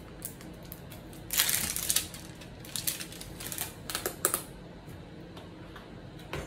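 Plastic lid being pried and peeled off a whipped topping tub: a crackling crinkle about a second and a half in, then a run of sharp plastic clicks and snaps.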